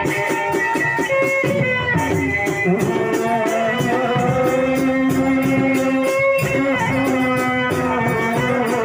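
Lombok rudat ensemble music: a large double-headed drum and jingling percussion beat a fast, steady rhythm under long held melody notes.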